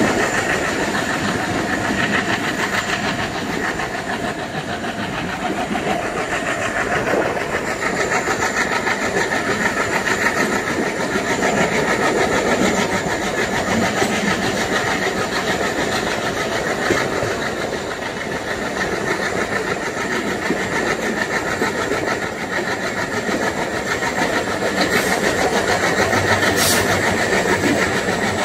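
Twin WDM3A ALCO diesel locomotives working hard as the train pulls away, their engines chugging steadily under load. Two brief sharp clicks come near the end.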